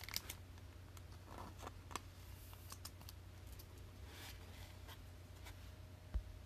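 Faint scattered clicks and short rustles of a trading card being handled and slid into a clear plastic sleeve, over a steady low hum.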